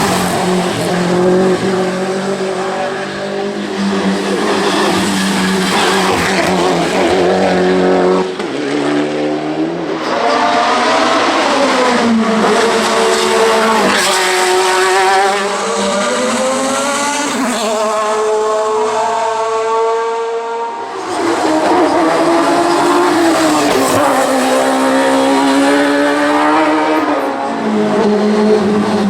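Hill-climb race car engines at full throttle, pulling up through the gears: the pitch rises, drops at each shift and climbs again, over and over. The sound breaks off abruptly about eight seconds in and again about twenty-one seconds in.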